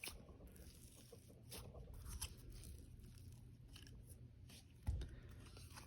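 Faint handling sounds of slime being mixed by hand: soft scattered clicks and crackles, with one louder bump about five seconds in.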